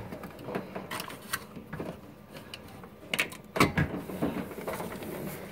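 Scattered clicks, taps and light knocks of hands fumbling behind a washing machine, reaching for its power plug, with a heavier knock a little past halfway.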